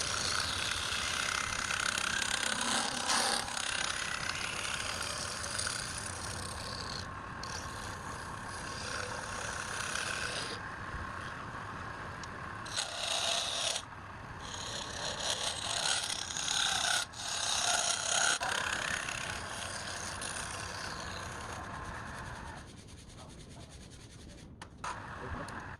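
A tool rasping against wood turning on a woodturning lathe. The scraping is steady, with several brief pauses, and grows quieter for the last few seconds.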